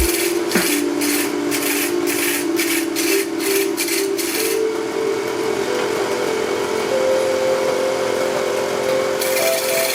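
Wood lathe running with a tool scraping against the spinning wood. It starts in repeated strokes, about two a second, then changes to a steady scrape after about four and a half seconds.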